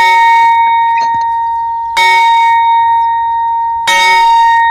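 Large bronze bell struck three times, about two seconds apart, each stroke ringing on with a steady tone that carries into the next.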